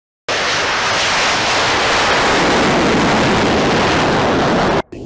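Loud, steady jet roar of an F-35A's single Pratt & Whitney F135 turbofan as the fighter climbs out after takeoff. The roar starts abruptly a moment in and cuts off sharply near the end.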